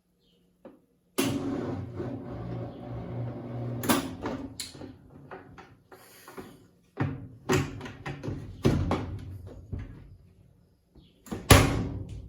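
Consul CWC08 top-loading washing machine working its load in irregular surges of churning, mixed with sharp knocks, starting suddenly about a second in.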